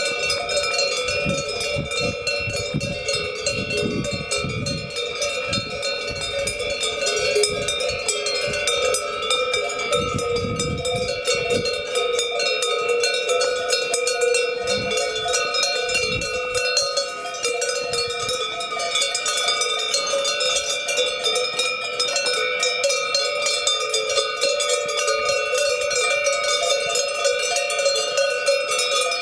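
Many cowbells on a herd of cows ringing together, a continuous dense jangle of overlapping bell tones as the animals move. Low rumbles run under the bells through the first half and fade out about halfway through.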